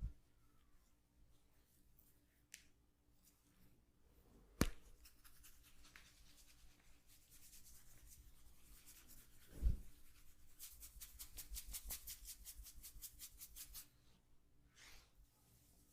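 Hands massaging skin: quiet rubbing, with a few single soft knocks. About eleven seconds in comes a quick run of light taps, about seven or eight a second, lasting some three seconds.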